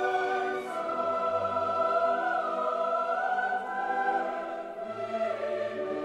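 Background choral music: a choir singing long held notes that shift slowly from chord to chord.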